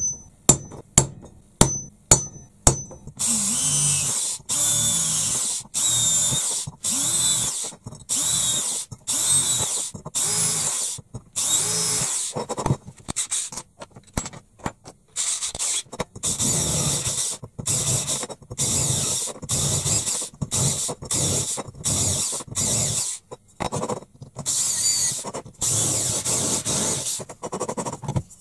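A hammer striking a punch against the steel end of an oil filter canister, five sharp strikes in the first three seconds. Then an electric drill runs in short bursts, starting and stopping over and over as it bores a ring of holes through the metal end.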